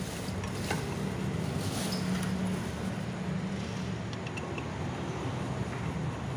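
Steady low machine hum, with a few faint metallic clicks as a lug nut is spun by hand onto a wheel stud, a small cluster of them a little past halfway.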